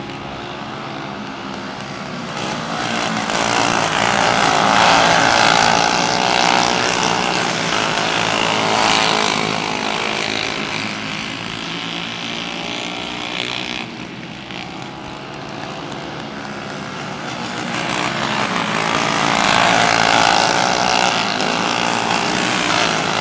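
Several racing karts' small engines running hard, pitches rising and falling as they accelerate and lift through the turns. The sound swells as the pack passes close, eases off, then swells again as they come around on the next lap.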